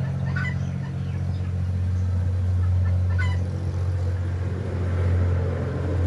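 A young chicken peeping briefly, twice, over a loud steady low hum.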